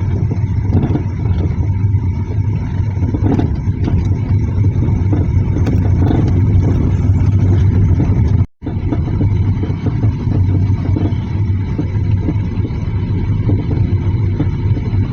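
Car on the move: a steady low engine and road rumble, broken by a sudden brief dropout about eight and a half seconds in.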